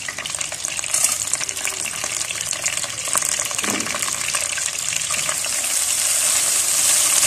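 Whole spices sizzling in hot melted ghee and butter in a wok: a steady frying hiss that grows louder near the end.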